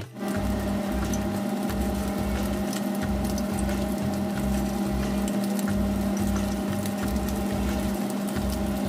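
Battered chicken pieces deep-frying in hot oil in a wok, a steady sizzle with fine crackling. A steady low hum runs underneath.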